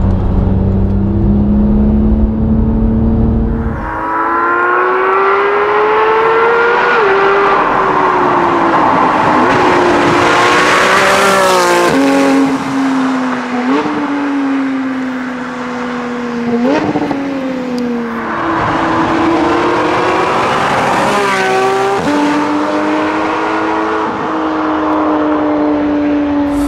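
Porsche 991 GT3's flat-six through a Sharkwerks aftermarket exhaust. It runs at a steady pitch inside the cabin, then, heard from the roadside, accelerates hard with the engine pitch climbing and stepping back several times at gear changes.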